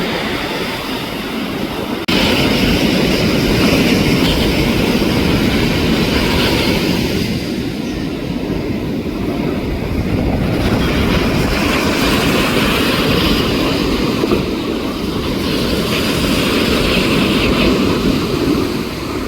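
Commercial airliner's jet engines running as the plane flies past, a steady rushing rumble with a hissing upper layer that rises and falls; the level steps up suddenly about two seconds in.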